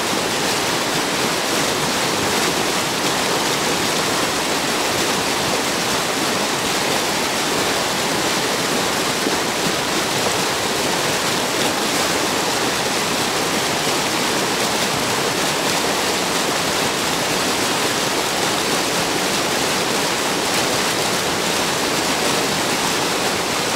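Mountain river rushing: a loud, steady, unbroken sound of flowing water.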